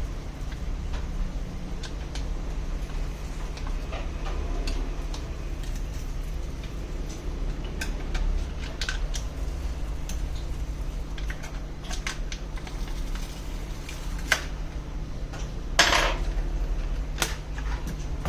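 Scattered light clicks and taps of small tools and parts being handled, over a steady low hum, with one louder clack near the end.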